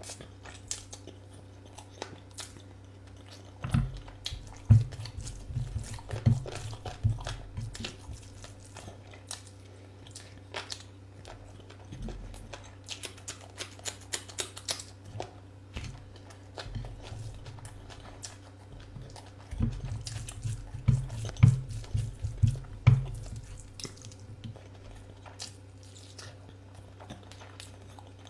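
A person chewing and biting food close to the microphone, with wet smacks and clicks. It comes in two spells of rapid chewing, one a few seconds in and one past the middle, with quieter chewing between them. A faint steady low hum runs underneath.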